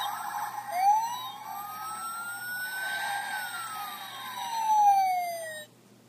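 Fire engine siren sound effect: one slow wail that rises for about two and a half seconds and then falls, cutting off sharply near the end.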